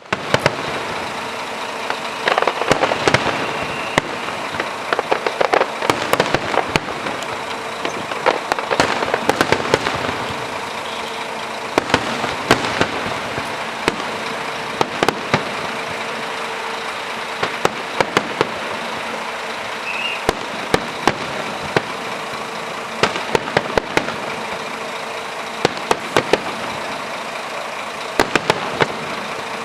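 Aerial fireworks of a show's finale bursting: many sharp bangs and crackles in quick, irregular succession, thickest in a few clusters, over a steady background hiss.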